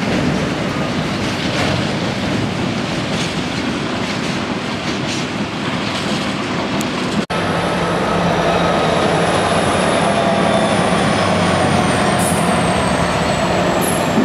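Freight wagons rolling past over a viaduct with a steady rumble and wheel clatter. About seven seconds in the sound cuts abruptly to a line of Class 66 diesel-electric locomotives passing with their engines running, under a faint high whine that slowly falls in pitch.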